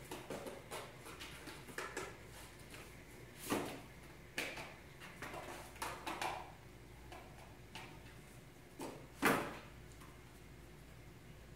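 Irregular scrapes and knocks of a shallow cardboard box on a concrete floor as a cat moves about inside it, with two louder knocks about three and a half and nine seconds in.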